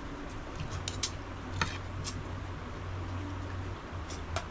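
Spoon and fork clicking against plates a few times during a meal, over the steady low hum of an electric fan.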